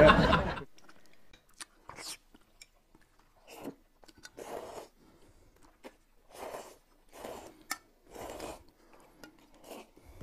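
Close-up eating sounds: noodles slurped and chewed in short bursts every second or so, with a few sharp light clicks between them.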